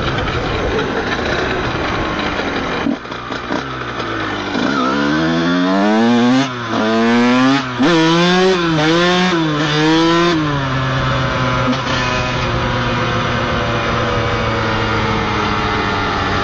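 Honda CR125's two-stroke single-cylinder engine under way: revs hold, then drop about three seconds in, then climb in several rising pulls with two short breaks between them, before settling into steady running for the last few seconds. The bike is being ridden with a burnt clutch, according to the rider.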